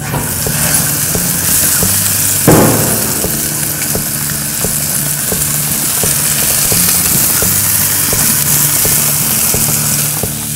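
Bacon-wrapped venison burger dogs sizzling and hissing on a gas grill, heard close up, with small pops of dripping fat over a steady low hum. A louder burst comes about two and a half seconds in.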